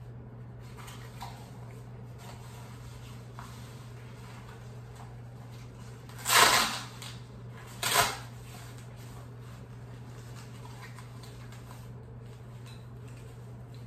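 Blood pressure cuff being wrapped and fastened around an upper arm: two short ripping rustles of its hook-and-loop strap, about six and eight seconds in, the first longer, over a steady low hum.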